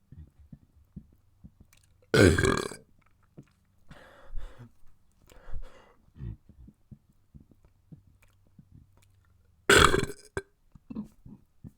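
A person burping loudly twice, each burp lasting about half a second, the second near the end. Softer breathy sounds and small clicks come in between.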